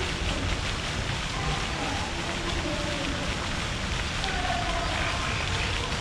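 Faint, indistinct voices in the distance over a steady rushing noise with a low rumble.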